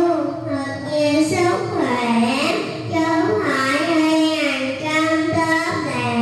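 A young girl singing a Vietnamese children's song into a handheld microphone, holding long notes that slide up and down in pitch.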